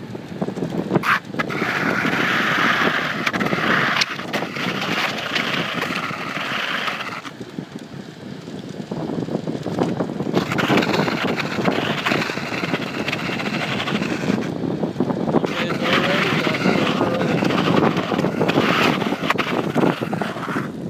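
Wind rushing over the microphone, with tyre and road noise, while a BMX bicycle is ridden along; the hiss swells in three long stretches of a few seconds each.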